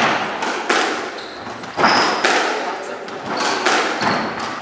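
Squash rally: the ball cracking off racquets and the court walls about five times, each hit echoing in the hall, with short high shoe squeaks on the wooden court floor.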